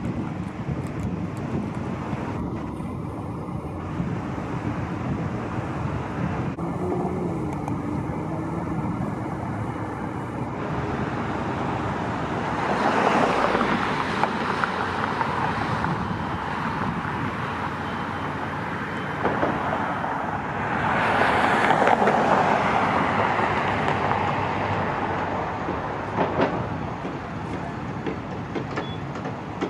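Steady street traffic noise, with vehicles passing close by and swelling louder about 13 seconds in and again around 21 to 23 seconds in.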